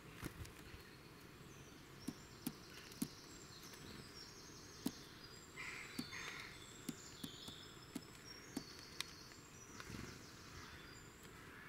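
Faint birdsong with high, thin notes, over a string of sharp taps as a European robin pecks food off a wooden fence rail. About ten seconds in there is a brief soft flutter as the robin flies off.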